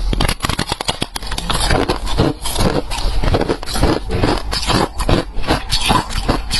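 Close-up crunching of freezer frost being bitten and chewed: dense, irregular crackling crunches, several a second.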